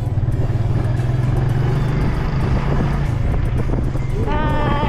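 Motorcycle engine running steadily as the bike rides along, with wind rushing over the microphone. About four seconds in, a short high-pitched sound with several tones bends up and then holds.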